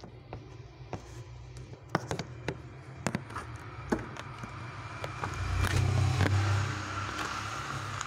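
Handling noise from a phone being gripped and shifted in the hand: scattered light clicks and knocks, then a louder rubbing rumble from about five seconds in.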